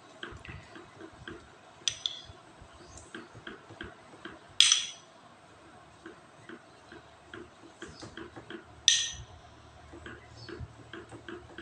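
Metal spoon spreading a thin cornflour-and-oil paste over sheets of rolled dough on a wooden board: many soft ticks and light scrapes, with three sharper clinks that ring briefly.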